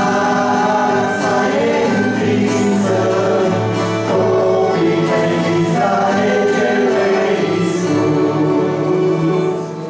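Two men singing a Christian song together, accompanied by acoustic guitar and piano accordion; the music quietens near the end.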